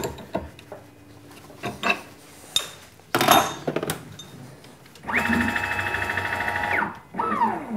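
CNC mill table jogging under its axis drive motors: a steady pitched motor whine with a fast buzz for about two seconds, then a shorter move whose pitch falls as it slows to a stop. Before that come a few clicks and a short loud scraping noise about three seconds in.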